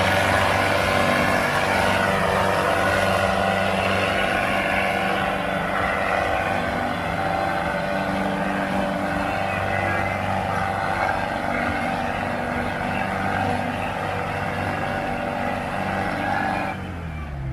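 Two tractors' diesel engines, a red Mahindra 555 DI and a blue tractor, running flat out under heavy load as they pull against each other in a tug-of-war, a steady loud drone. Near the end the engine note falls away as the throttle is eased off.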